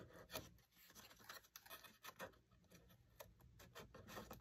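Faint handling noises: scattered light clicks and rubbing as fingers press tape onto a wooden wall cap of a dollhouse kit.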